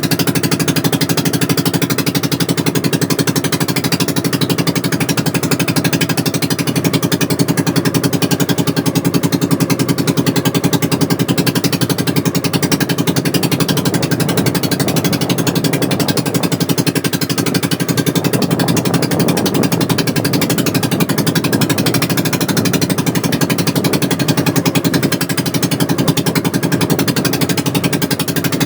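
Small fishing boat's engine running steadily at one speed, with a rapid, even beat.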